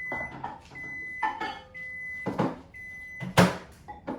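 Microwave oven beeping at the end of its cycle: short high-pitched beeps about once a second, about four of them, mixed with knocks and clatter, the loudest a sharp knock about three and a half seconds in.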